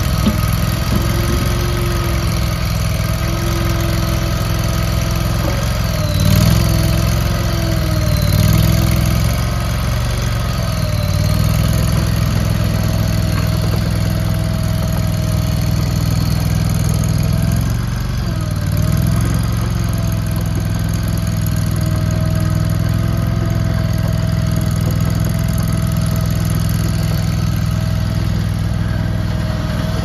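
Engine of an AGT KRT23 mini tracked skid steer running steadily while the machine is driven, its pitch dipping and recovering briefly a few times, around six, eight and eighteen seconds in.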